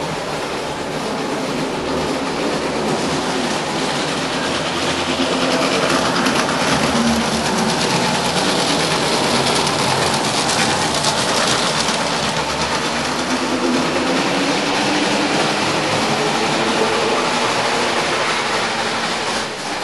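A train running on rails: a steady, loud rattle of wheels on track that starts abruptly.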